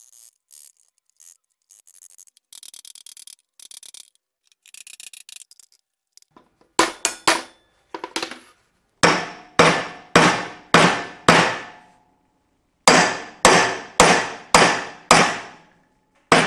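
Hammer tapping flat-blade screwdrivers wedged under a Honda Today scooter's bottom cone race (the lower steering-head bearing race), driving it off the steering stem. Faint scraping and clicks come first, then from about the middle sharp metal-on-metal taps in runs of about two a second, each ringing briefly.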